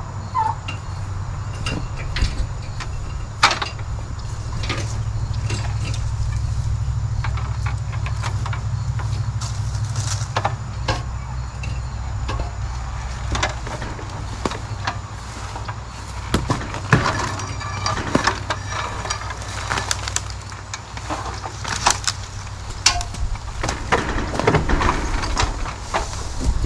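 Scattered metallic knocks and clanks of an aluminum extension ladder being set against a tree and climbed, most frequent in the second half, over a steady low hum.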